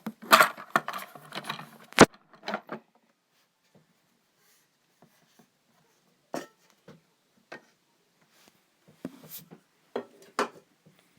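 Scattered handling noises: rustles and light clicks of small objects being picked up and set down on a surface, with one sharp knock about two seconds in.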